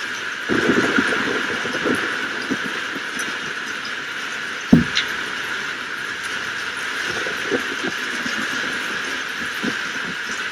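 Rainstorm: a steady hiss of rain with scattered crackles, and one sharp crack about halfway through.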